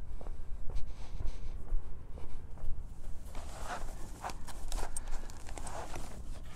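Footsteps on pavement, then scattered light clicks and short rustles as the folded Jeep Wrangler soft top's fabric and frame are handled, over a low steady rumble.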